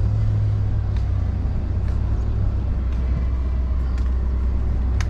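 Car running slowly, heard from inside the cabin with the window down: a steady low engine and road rumble, with faint ticks about once a second.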